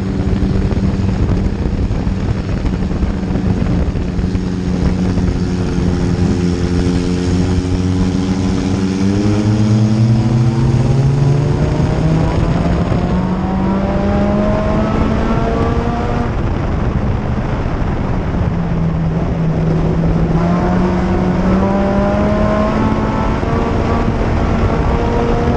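2004 Chevrolet Cavalier race car's 2.2-litre four-cylinder engine, heard from inside the cockpit. It runs steadily at first, then pulls up in pitch from about nine seconds in, eases off around eighteen seconds and climbs again near the end, over constant road and wind noise.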